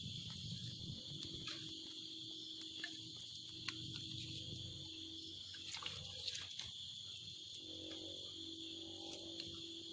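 Night insects, crickets, keeping up a steady high-pitched chorus, with a few scattered sharp clicks.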